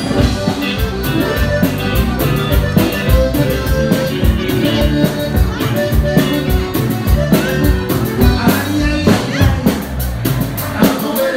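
Live band playing an upbeat number through the stage sound system: electric guitars over a drum kit keeping a fast, steady beat.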